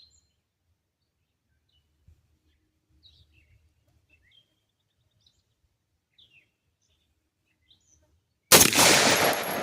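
Faint bird chirps, then about eight and a half seconds in a single rifle shot from an AR-15 chambered in 350 Legend, loud and sudden, ringing out in a long echo.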